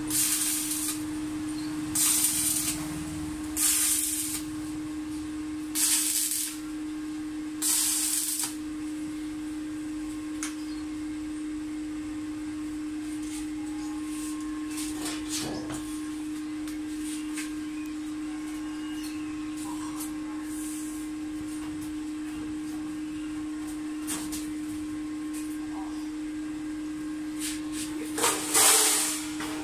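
Short bursts of harsh noise from metalworking on a galvanized sheet-metal cart: about five in the first eight seconds and one near the end. They sit over a steady hum.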